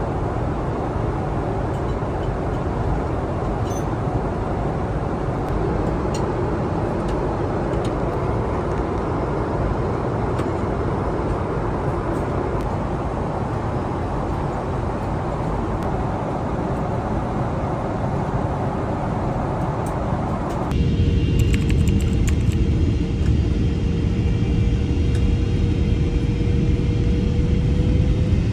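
Steady vehicle noise, a rumble with hiss. About three-quarters of the way through it switches abruptly to a louder, deeper rumble with a faint hum slowly rising in pitch.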